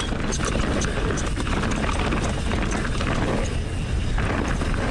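Mountain bike being ridden fast down a dirt trail: steady wind rumble on the helmet- or chest-mounted action camera mixed with tyre and trail noise, with scattered small clicks and rattles from the bike.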